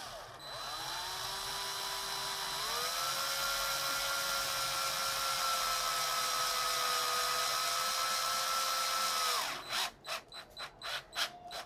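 Cordless drill-driver driving a screw into wood. The motor whine climbs in pitch, steps up about two and a half seconds in and runs steady, then breaks into a string of short bursts near the end.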